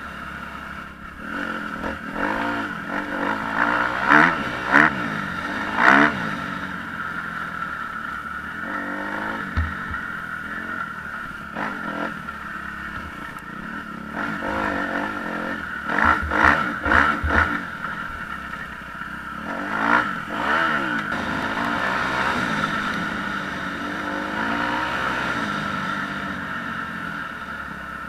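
Kawasaki KX250F's single-cylinder four-stroke engine through an FMF Megabomb header and 4.1 RCT silencer, heard from the rider's helmet, revving up and falling back again and again as the bike accelerates along the trail. The hardest bursts of throttle come about four to six seconds in, again around sixteen to seventeen seconds, and near twenty seconds.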